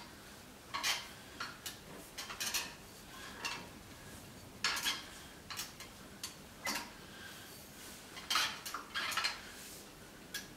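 Motorcycle exhaust pipes and their joining rings clinking and scraping, metal on metal, as they are pushed and fitted together by hand. The knocks come irregularly, a dozen or so.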